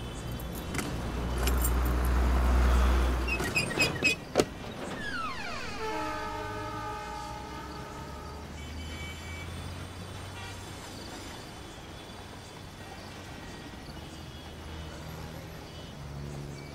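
Night city street traffic: a vehicle goes by with a low rumble, then comes a couple of sharp clicks. Just after that, a vehicle horn sounds one long note of about three seconds, its pitch falling at the start, over a steady low traffic hum.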